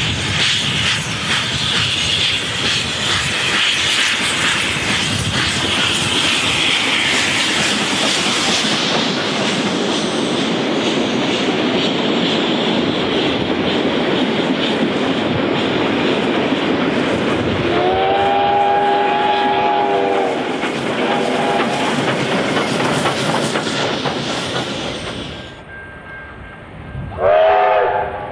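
Y class 0-6-0 steam locomotive working hard up a steep 1 in 52 grade: rapid, steady chuffing from its exhaust with hiss, and the carriages clattering over the rail joints as the train passes. Its chime-like steam whistle sounds for about two seconds well after the middle, then again briefly; after a sudden drop in level, a short whistle sounds near the end.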